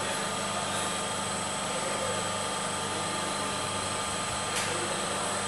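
Three-phase induction motor on a VFD running steadily at about 560 rpm: a constant hum with thin, steady high-pitched whine tones above it. A short click about four and a half seconds in.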